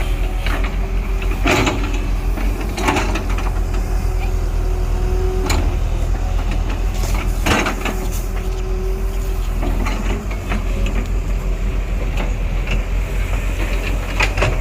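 Diesel engine of a heavy earthmoving machine running steadily, with a few sharp metallic knocks spaced a few seconds apart.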